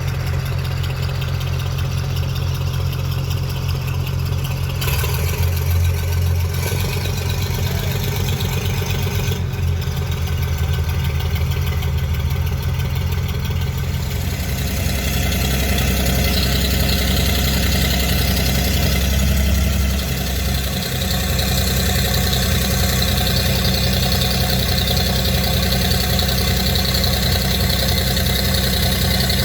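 An engine running steadily with a low drone. About halfway through, a hiss joins it.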